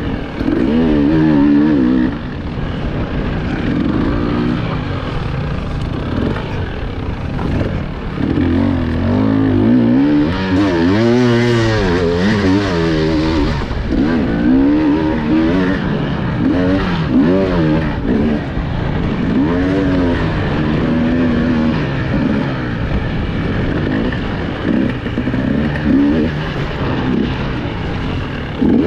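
Enduro motorcycle engine heard from on board, revving up and down again and again as the throttle is worked, over steady mechanical and ground noise.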